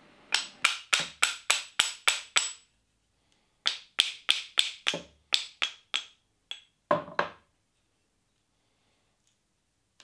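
Steel hammer repeatedly tapping an old axe head to drive it off its worn wooden handle. There are quick runs of sharp, ringing strikes, about three or four a second, with short pauses between runs, and a last, heavier blow about seven seconds in.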